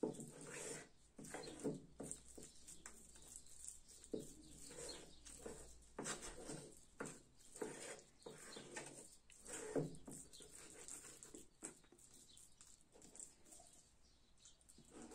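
Wooden spoon stirring and scraping thick wet henna paste in a glazed clay bowl, making irregular short, soft sounds.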